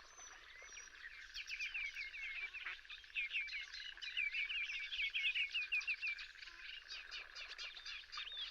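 Small birds chirping in rapid, repeated short calls from about a second in, over a steady continuous high drone.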